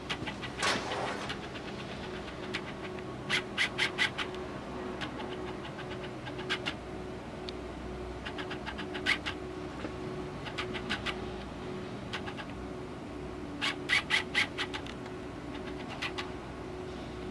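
A steady machine hum with a slight regular pulse, broken several times by short bursts of rapid high chirps or ticks.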